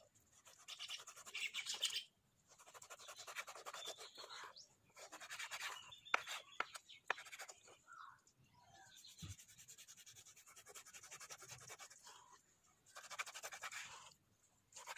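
Kitchen knife sawing back and forth through raw boneless beef and fat on a wooden cutting board: faint scraping strokes in short spells, with a few sharp taps of the blade on the board about six to seven seconds in.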